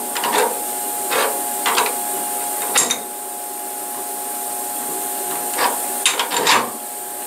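Milling-machine vise being tightened by its handle: a series of short metal clunks and clinks, in two bunches, as the handle is worked to snug the part against a parallel. A steady electrical hum runs underneath.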